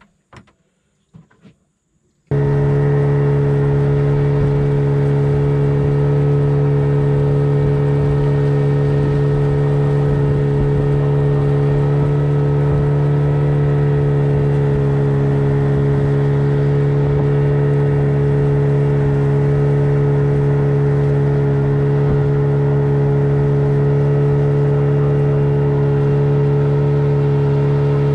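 Boat engine running at a steady speed, a loud even hum that starts abruptly about two seconds in; before it, a few faint knocks.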